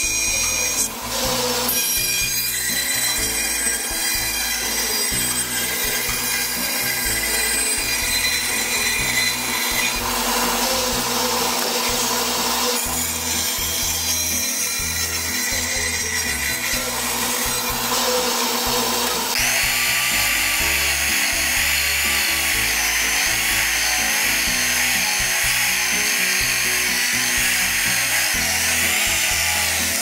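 Bandsaw running and cutting a notch into a wooden board, a steady saw noise, with background music underneath.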